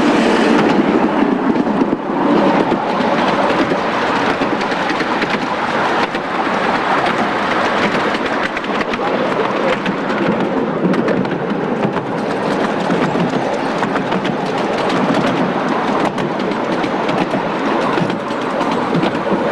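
A 7.25-inch gauge miniature train rolling along with passengers aboard: a steady rumble and rattle of small wheels on the rails, with a dense run of clicks throughout.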